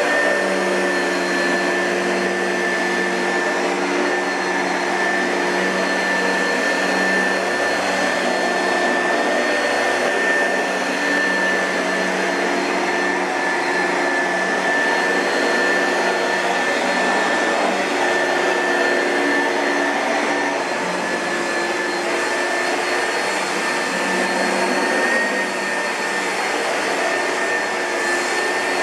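2005 Oreck XL2 upright vacuum cleaner running steadily, its motor giving an even, high-pitched whine over a rushing airflow.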